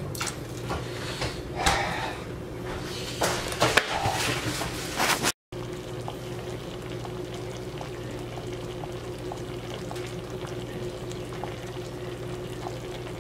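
Liquid poured from a bowl into a pan of pork chops, splashing unevenly for about five seconds. After a brief cut, the pan simmers steadily with faint scattered bubble pops over a steady low hum.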